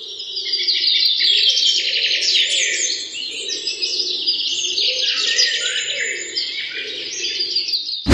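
Many small birds chirping and twittering at once in a dense, continuous chorus, with a weaker lower sound underneath.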